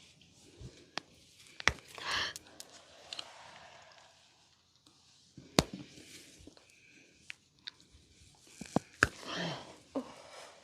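Hands giving a head and upper-body massage: three sharp smacks a few seconds apart, with smaller taps between, the first and last each followed by a short rustling rub.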